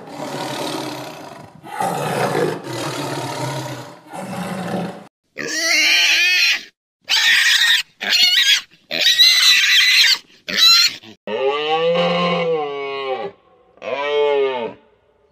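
A tiger roaring and growling in several bouts, then pigs squealing in short high-pitched bursts, then a cow mooing twice near the end.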